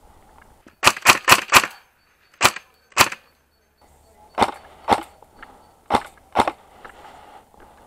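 JG G36C airsoft electric rifle fired one shot at a time, each a sharp crack. A quick string of four comes about a second in, then single shots spaced half a second to a second apart.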